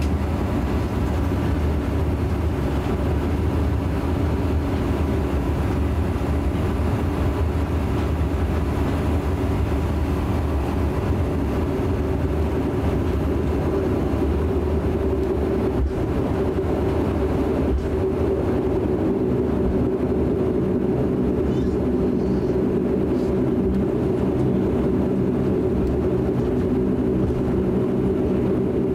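Cabin noise of a DHC-8 Q400 taxiing: its Pratt & Whitney PW150A turboprop engines and propellers running steadily at low power, heard as a constant hum with several held tones.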